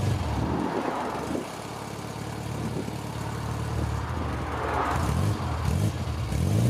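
Exhaust note of a 1968 Morris Minor's A-series four-cylinder engine running, heard at the tailpipe. The revs sag about a second and a half in, then rise again, with a couple of short climbs in pitch in the second half.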